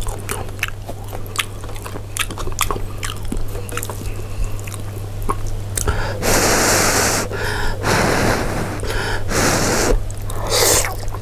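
Someone eating luosifen (Chinese snail rice noodles) with chopsticks close to the microphone: wet mouth clicks of chewing through the first half, then several noisy slurps of the noodles in the second half.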